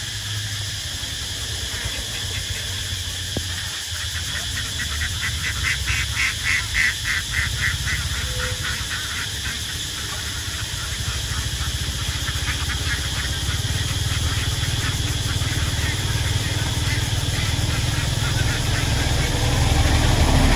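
A flock of farm ducks quacking in a rapid, rhythmic run of calls, loudest a few seconds in and thinning out later, over a steady low rumble that grows louder near the end.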